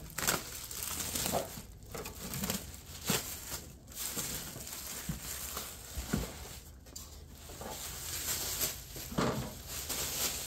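Clear plastic bag crinkling and rustling as it is pulled off a new welder, with a few short knocks as the machine is handled.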